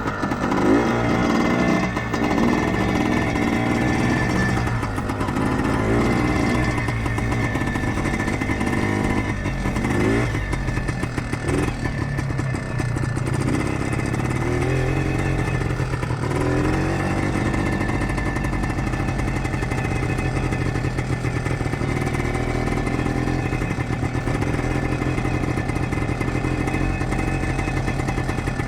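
1976 Kawasaki KT250 trials bike's two-stroke single-cylinder engine running warm. Its revs rise briefly several times in the first half, then it runs at a steady pace.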